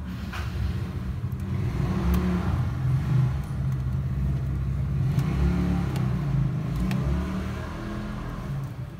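Steady low mechanical hum, like a motor running, with a few faint light clicks.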